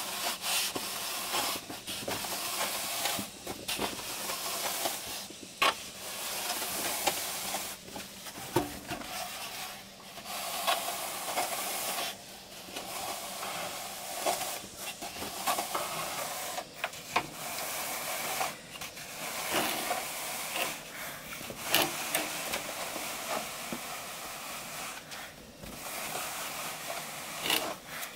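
A plastic pipe used as a straightedge scraped across wet cement render, in repeated rasping strokes with short breaks between them.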